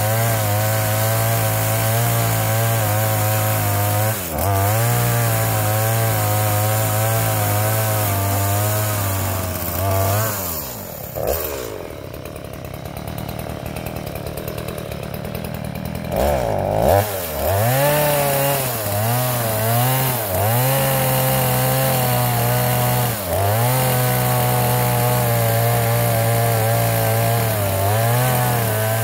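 Two-stroke chainsaw at full throttle cutting into an oil palm trunk, the engine note dipping briefly under load. About a third of the way in it drops to idle for roughly five seconds, then revs back up and cuts again, sagging under the load several times.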